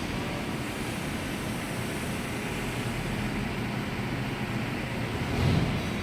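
Steady mechanical running noise of a center lathe, with a faint hum and a brief swell near the end.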